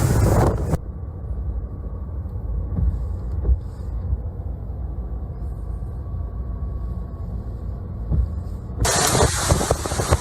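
Storm wind battering the microphone. About a second in it cuts to a muffled low rumble, and the wind noise comes back near the end.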